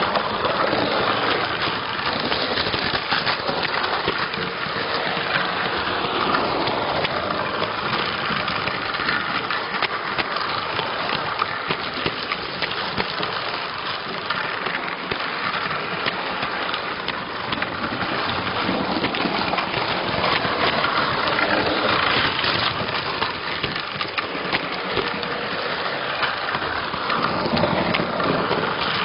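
Electrotren model train, locomotive 276 hauling passenger coaches, running on its track: a steady dense rattle of wheels clicking over the rails and joints, heard close up from a camera riding on the train.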